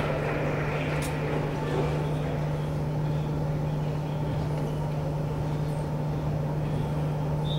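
Steady gymnasium room noise: a constant low hum under a broad haze, with faint voices near the start, a sharp click about a second in and a brief high squeak near the end.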